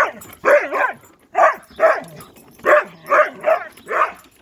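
Dog barking at a lawn mower it treats as a threat: about eight short, weak barks in small clusters.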